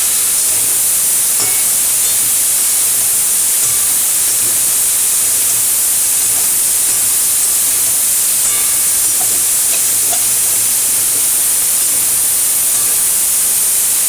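Mixed vegetables frying in oil in a pan, a steady sizzle, with a few faint clicks.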